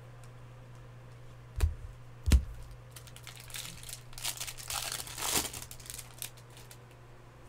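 Two dull thumps, about a second and a half and two and a half seconds in, then a few seconds of crinkling and tearing as a foil trading-card pack wrapper is ripped open.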